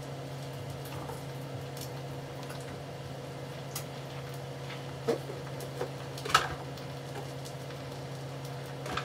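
Bacon frying in a skillet, the fat sizzling with scattered small pops, over a steady low hum. Two sharper clicks stand out about five and six seconds in.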